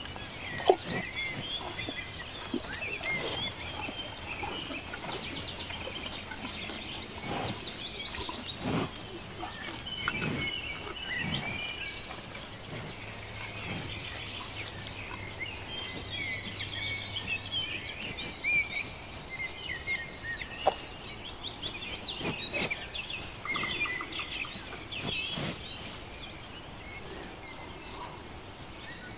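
Many small birds chirping and singing together, dense and continuous, with a few short thumps scattered through it, the loudest about a second in.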